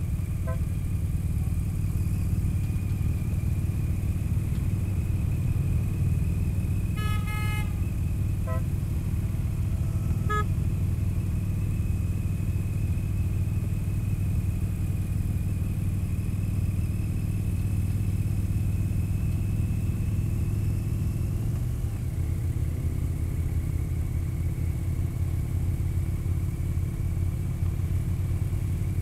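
Touring motorcycle engine running steadily while cruising, heard from the rider's seat, with a short horn toot about seven seconds in and a few brief beeps around it. The engine note changes about 22 seconds in.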